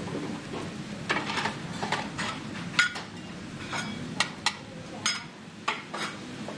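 Metal spatulas clinking and scraping against a frying pan of kimchi fried rice as it is stirred and spread out, a string of irregular sharp clinks.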